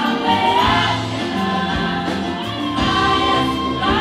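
Youth choir singing together with a band, many voices holding long notes over a low beat about once a second.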